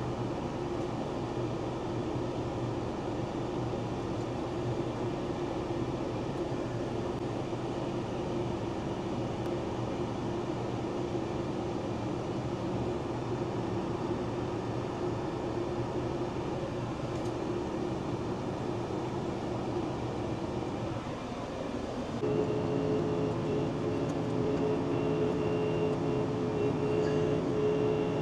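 LS MT357 diesel tractor running steadily while its hydraulic top-and-tilt kit works a box blade. About three-quarters of the way through the sound gets louder and a steady higher tone joins in.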